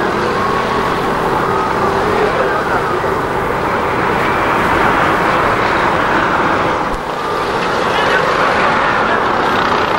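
Busy roadside street noise: steady traffic sound with indistinct voices of people close by.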